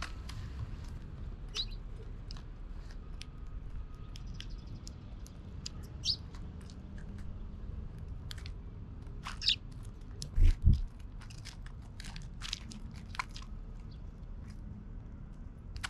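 Eurasian tree sparrows pecking and cracking seeds in a seed tray close to the microphone: a steady patter of small clicks and crunches with a few short chirps. Two dull thumps about ten and a half seconds in are the loudest sounds.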